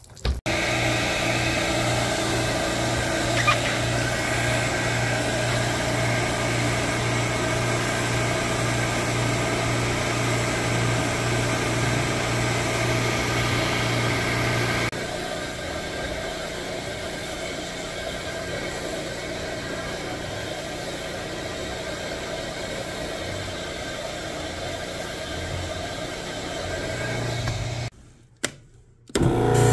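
Portable carpet extractor running steadily, its vacuum motor and pump giving a constant drone with a low hum. The sound drops somewhat about halfway and cuts out for about a second near the end, then returns louder.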